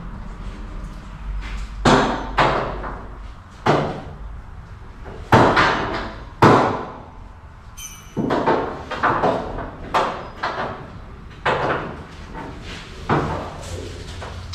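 A series of loud knocks and bangs, about ten at irregular intervals. A low rumble sits under the first few seconds and then drops away, and there is a brief high squeak about halfway through.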